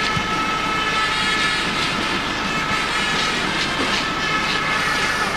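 Stadium crowd noise under a steady drone of many horns blown in the stands, holding a few constant notes.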